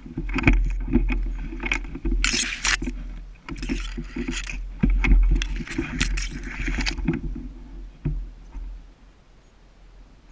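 Rustling and scraping close to the microphone, in irregular bursts with a low rumble underneath, dying down about eight seconds in.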